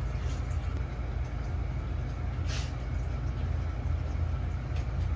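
Steady low hum of background noise, with a brief hiss about halfway through.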